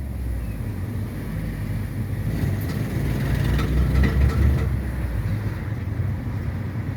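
BMW E46 320d four-cylinder diesel car driving, a steady low rumble from engine and driveline with a few faint clicks or knocks about halfway through. The owner suspects a driveshaft not tightened enough at the differential, a noise that comes only under load.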